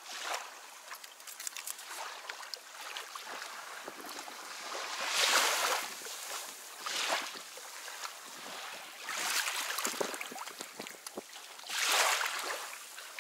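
Shallow water splashing and lapping at the water's edge, in several surges a second or two apart, the loudest about five seconds in and again near the end.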